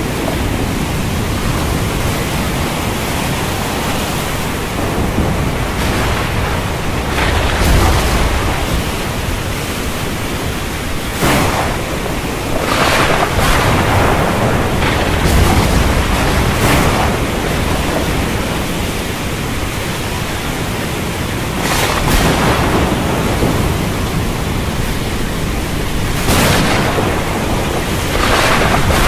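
Thunderstorm: steady heavy rain with several sharp thunder cracks and a few low rumbles rolling through it.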